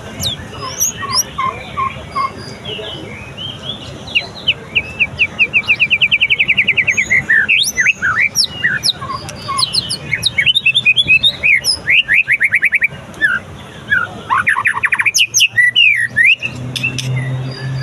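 Murai songbird singing a loud, varied song of rapid trills and sweeping whistled phrases, its first song tested after moulting. A low steady hum joins near the end.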